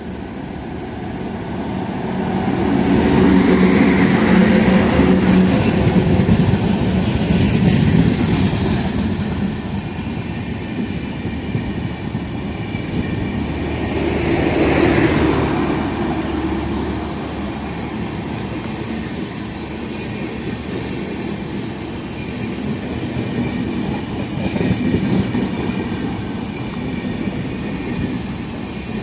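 A train passing close by on the track, its wheels clattering over the rail joints. The noise runs throughout and swells louder several times as the cars go by.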